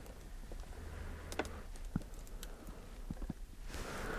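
Faint scattered clicks and taps from donated clothing packages being handled, over a low steady hum; a soft rustle builds near the end.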